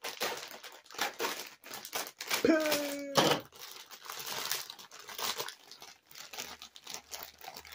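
Clear plastic packaging being pulled and torn open by hand, crinkling and rustling with rapid crackles. A short held tone sounds about two and a half seconds in.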